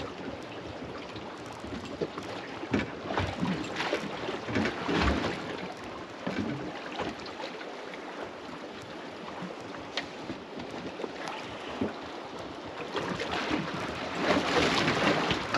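Wind on the microphone and water lapping against the hull of a small drifting boat, with scattered small knocks and clicks. The wash grows louder twice, near the start and near the end.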